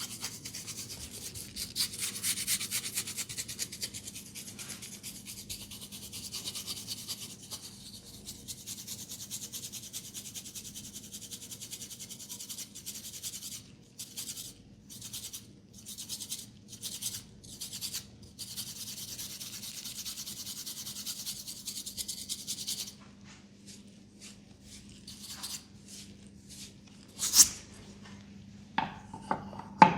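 Hands rubbing and massaging a person's head and hair: a steady scratchy rubbing that breaks into separate strokes about halfway through, then stops. Two sharp clicks follow near the end.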